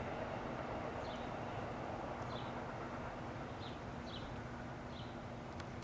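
A small bird repeating short, high, falling chirps about once a second over a steady low outdoor rumble with a faint hum, which slowly fades.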